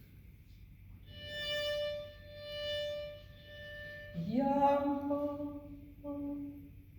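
Solo violin playing a short phrase of held notes, the three equal notes now shaped as a waltz: a high held note, then a stronger lower note that slides up into pitch, and a short note after it.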